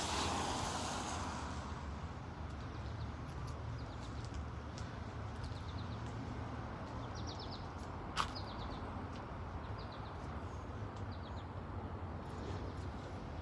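Outdoor traffic ambience: a passing swell of road noise fades over the first couple of seconds into a steady low rumble. Birds chirp briefly a few times, and a single sharp click comes about eight seconds in.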